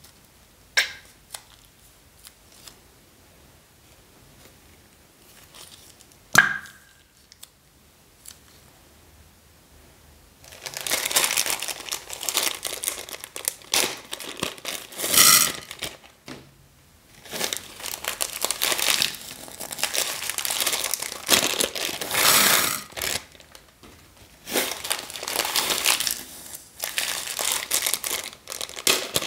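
Small plastic packets crinkling and tearing as they are opened and squeezed empty. This comes in long bursts with short pauses, starting about a third of the way in. Before it there are only a few sharp clicks.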